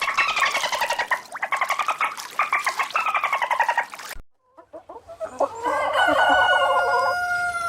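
Chicken clucking in a fast run of calls. After a sudden cut there are a few short clucks, then a rooster crows: one long held call that stops near the end.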